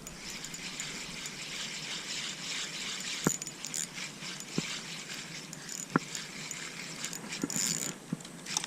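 Steady hiss of flowing river water, with a few sharp clicks scattered through it.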